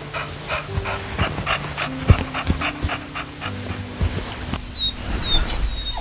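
A dog panting quickly in a steady rhythm, about four or five breaths a second, over soft background music, with a few low knocks. The panting gives way to thin high whines after about five seconds.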